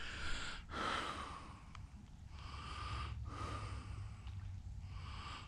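A person breathing close to the microphone: about four breaths in a row, each a soft hiss with a short pause between them.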